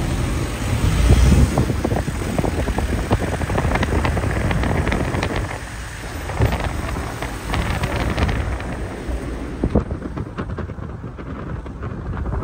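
Street noise outdoors, with wind buffeting the microphone as a low rumble that is heaviest about a second in, and many scattered knocks and clicks.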